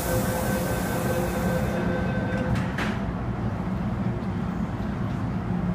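MTR M-Train at the platform: a hiss of air and a steady door-closing warning tone, cut off about two and a half seconds in by two quick thuds as the train doors and platform screen doors shut. The train's low rumble runs underneath.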